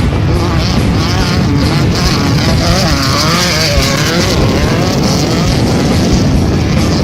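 1600-class desert race buggy with an air-cooled VW engine running hard, its pitch wavering up and down as the revs change.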